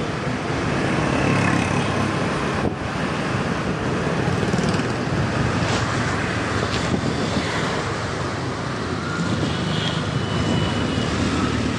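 Motor scooter running steadily at riding speed, with wind and road noise on the rider's microphone and passing traffic.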